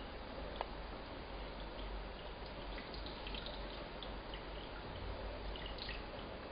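Underwater ambience picked up by a submerged camera microphone: a steady hiss with scattered faint clicks and crackles, and one sharper click about half a second in.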